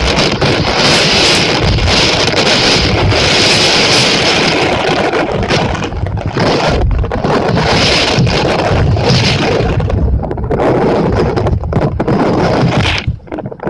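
Typhoon wind gusting hard against the microphone with a loud hiss of heavy rain. The hiss swells and fades several times as the gusts come and go.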